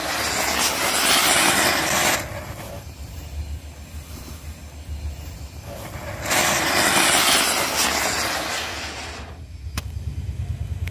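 Flower-pot firework fountains burning with a loud rushing hiss of spraying sparks. One lasts about two seconds at the start, and a second, fixed to a toy car, lasts about three seconds from about six seconds in. A steady low rumble runs underneath.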